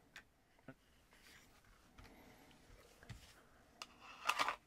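Hard plastic IWB holster handled on a bench: a few faint, scattered clicks and taps, then a short cluster of louder plastic clicks and rattles near the end.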